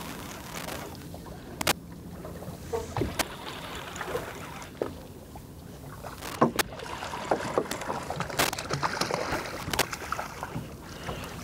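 Water lapping against the hull of a small drifting boat, with scattered sharp clicks and knocks.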